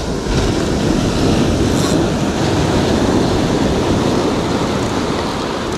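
Surf breaking and washing up a pebble beach, a steady, even rush of waves.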